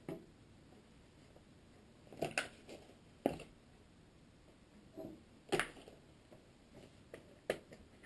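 A few light clicks and knocks, a second or two apart, from tools and small parts being picked up and set down on a table.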